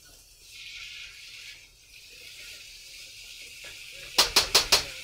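Food frying in a wok with a steady sizzle while a utensil stirs it. Near the end the utensil is knocked sharply against the wok four times in quick succession.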